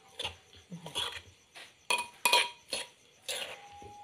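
Mixing a wet mushroom laab in a clay mortar: irregular knocks and clinks against the mortar, about seven in four seconds.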